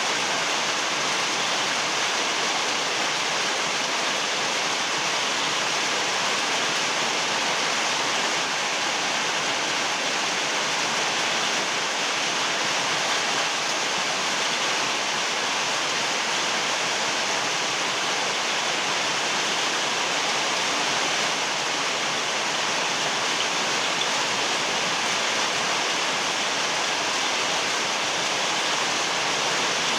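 Very heavy rain pouring down as a steady, dense hiss, with no thunder or other breaks.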